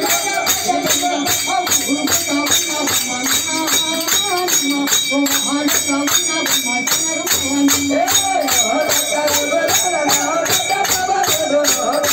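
Hand-held frame drum beaten in a fast, steady rhythm, about three to four strokes a second, under a voice singing a devotional chant.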